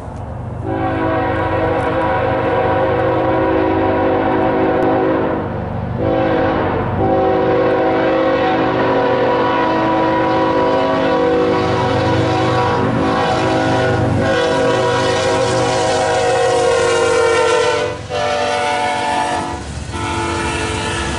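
Freight locomotive's multi-chime air horn sounding in long blasts as the train approaches, with brief breaks about six seconds in and near the end. The chord drops in pitch as the locomotive passes, over the low rumble of the train.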